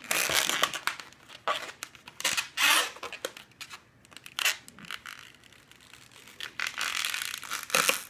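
Latex twisting balloon squeaking and rubbing against dry hands as it is twisted, in several short bursts with quieter gaps between.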